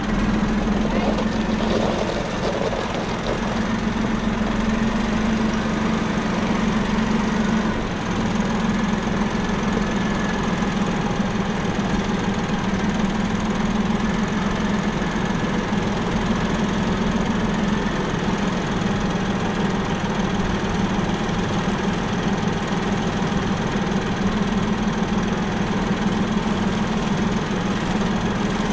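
Tractor diesel engine idling steadily, an even low hum.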